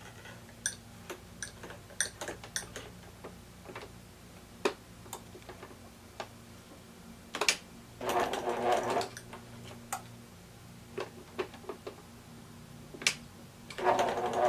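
Electric sewing machine stitching in two short runs, one about 8 seconds in lasting about a second and another starting near the end, with scattered sharp clicks and taps between them.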